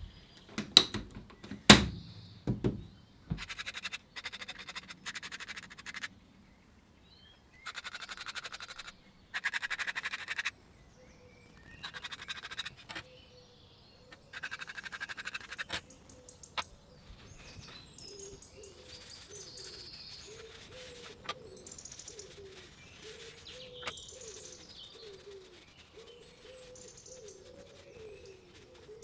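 A few sharp knocks as the lid of a media blasting cabinet is shut, then several separate bursts of compressed-air hiss, each one to two seconds long. After about 17 s come faint, irregular squeaks and chirps.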